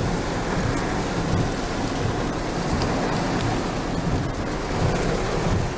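Heavy tropical-storm rain beating steadily on a car's windshield and roof, heard from inside the car, with a low rumble underneath.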